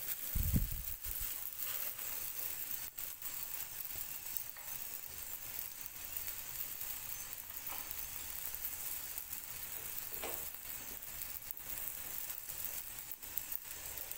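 Msemen (folded layered flatbread dough) frying in a lightly oiled pan: a steady sizzle with scattered small crackles. A dull low bump just after the start.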